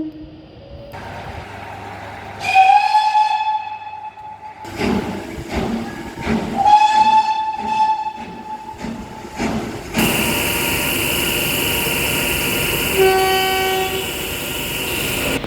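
A train horn sounds a single-note blast of about two seconds, then a second matching blast a few seconds later, over the clatter of a train passing on the rails. After a cut, a steady loud rushing noise with one short, lower-pitched horn note near the end.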